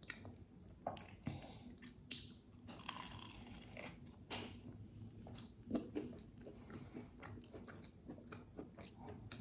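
A person chewing and biting food close to the microphone: faint, irregular soft crunches and mouth clicks.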